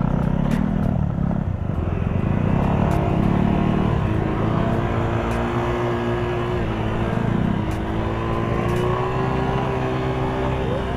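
Motorcycle engine running steadily while ridden off-road, its pitch dipping a little midway and then climbing slowly.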